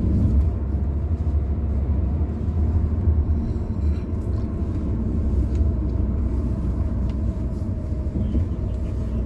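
Steady low rumble of a car's road and engine noise, heard from inside the cabin while driving.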